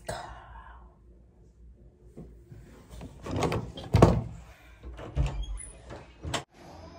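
A phone held as a camera is picked up and handled, giving rustling and several dull knocks, the loudest about four seconds in. A sharp click comes near the end, just before the sound cuts off.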